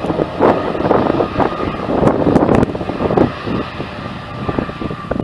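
Boeing 787-10's jet engines as the airliner rolls along the runway: a steady rumble, heavily buffeted by wind on the microphone. A faint steady whine comes in during the second half.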